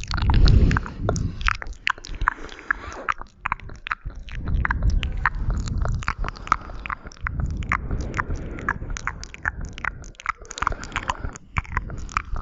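ASMR mouth sounds close to the microphone: a dense run of wet tongue and lip clicks and pops, over a low rumble that swells and fades, loudest about half a second in.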